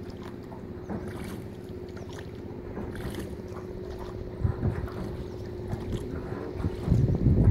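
A small boat engine hums steadily as the boat moves along the river, over a low rush of water and wind. Near the end a louder low rumble sets in, like wind buffeting the microphone.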